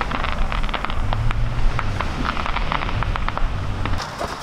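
Distant fireworks, firecrackers popping and crackling in many quick, irregular cracks over a steady low rumble.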